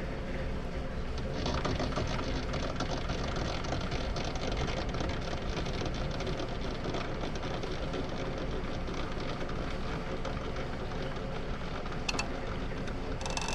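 A shop machine running steadily with a fast, even mechanical rattle that picks up about a second and a half in; a short click near the end.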